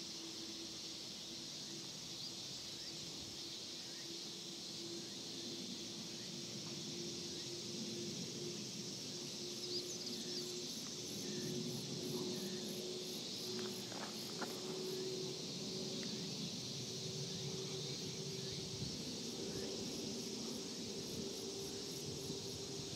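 A steady chorus of insects, with a rapid pulsing high trill at times, over the faint, slowly growing rumble of a twin-engine jet airliner passing high overhead.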